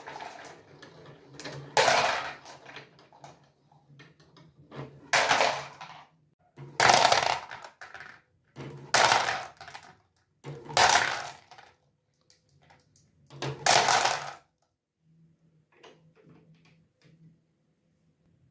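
Marbles rolling and clattering down a plastic marble run, with a loud rattling run roughly every two seconds, six in all. After about 14 s only faint ticks remain.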